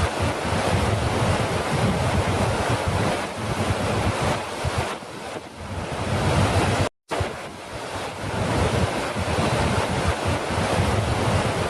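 Falling water rushing steadily, cutting out completely for a split second about seven seconds in and then resuming.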